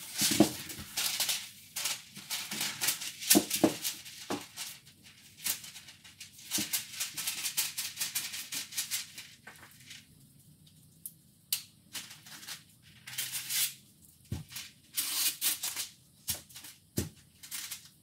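Stiff brown masking paper crinkling and rustling in irregular bursts as it is unrolled and handled along the floor, with a quieter stretch past the middle.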